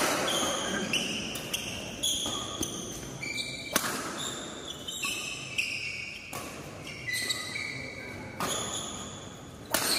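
Badminton rackets striking the shuttlecock in a rally, sharp hits about once a second that echo in the large hall, mixed with short high squeaks of court shoes on the floor.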